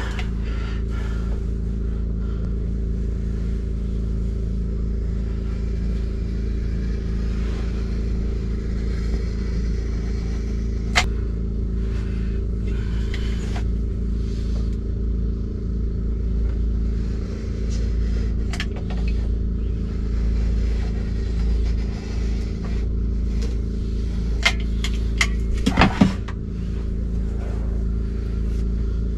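A steady low mechanical hum, with a sharp click about eleven seconds in and a few clicks and knocks near the end.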